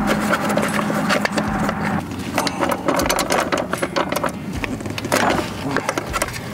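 Hand work on a tractor's loader joystick and control handle: a busy run of small clicks, taps and scrapes. A steady low hum plays under the first two seconds and then stops abruptly.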